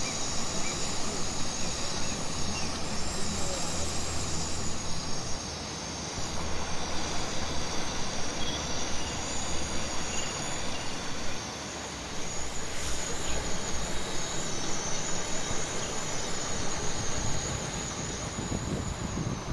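Diced tomatoes sizzling and bubbling in a hot wok, a dense crackle, over the steady rush of a river close by. The sound dips briefly twice.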